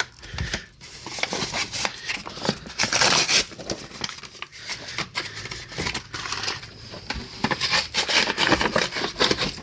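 Protective paper and tape being peeled off by hand and crumpled, a run of irregular crinkling and tearing crackles.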